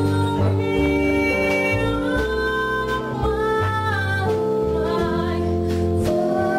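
Live small-band jazz: a woman singing a slow melody over electric keyboard, upright bass and drums, with a saxophone in the band.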